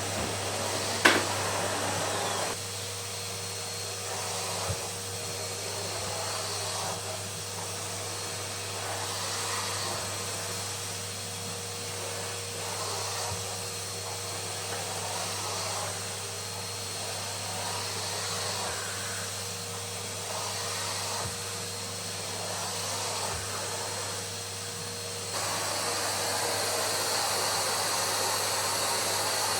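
Numatic tub vacuum cleaner running steadily, a motor whine with a constant hum over a broad rushing of air. There is a sharp click about a second in; the sound drops somewhat about two and a half seconds in and comes back up near the end.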